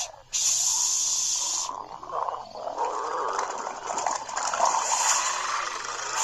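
A hiss for about a second and a half, then a long, rough, drawn-out burp that carries on for several seconds.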